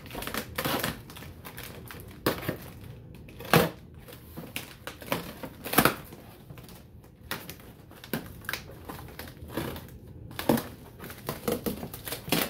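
Cardboard shipping box being opened by hand: a small knife cutting packing tape and stiff cardboard flaps being pulled and bent back, giving irregular scrapes and sharp crackles, the loudest two about three and a half and six seconds in.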